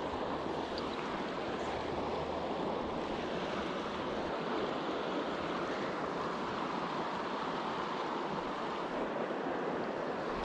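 Steady rush of a shallow river riffle flowing over rocks, an even noise with no breaks.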